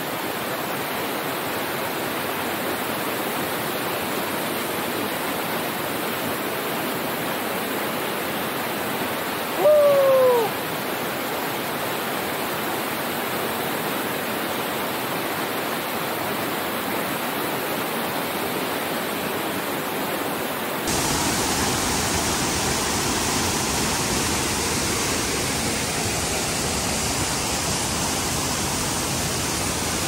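Waterfall and cascading stream rushing steadily. About ten seconds in comes one short falling hoot. About two-thirds through, the water noise abruptly turns louder and brighter.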